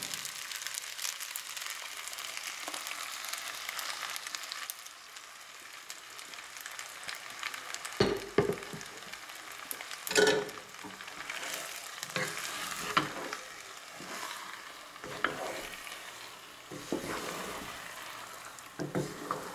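Cream sauce poured into a hot pan of spaghetti and diced ham, sizzling steadily for the first few seconds. From about eight seconds in, a wooden spoon stirs and scrapes through the saucy pasta in irregular strokes.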